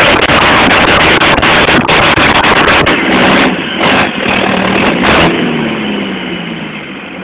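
Turbocharged tractor diesel engine running hard under load while cultivating. About five seconds in, the revs fall away and it settles to a steady idle.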